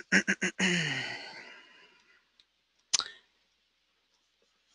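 A man sighs, a breathy exhale of about a second and a half with his voice falling in pitch, right after a few quick clicks. A single short click follows about three seconds in.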